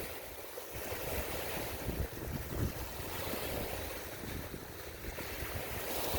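Waves on a bay washing in, a steady hiss of water that swells and eases, with gusts of wind rumbling on the microphone.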